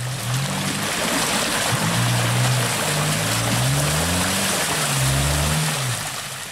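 Suzuki Vitara 4x4's engine revving up and down several times as it pushes through deep mud, over a steady wash of tyres churning and slopping through wet mud.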